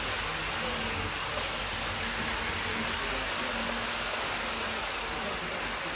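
Hornby OO gauge Class 47 model locomotive and its five coaches running on model track: a steady rushing whirr of the motor and wheels on the rails, with a faint low hum that comes and goes.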